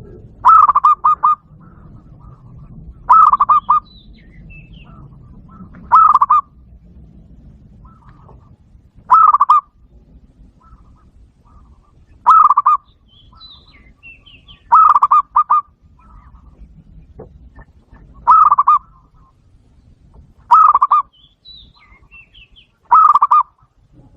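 Zebra dove call played loudly through a Bluetooth speaker: a short trilled coo repeated nine times, about every three seconds. Faint high chirps of other birds sound between the calls.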